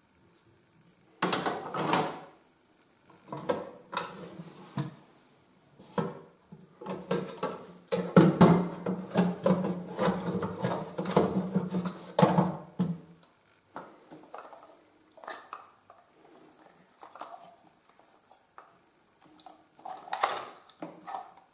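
Plastic inner fittings of a concealed toilet cistern, crusted with limescale, being worked loose and pulled out by hand: irregular knocks, clatters and scraping of plastic on plastic. Densest in the middle, then sparser, with another clatter near the end.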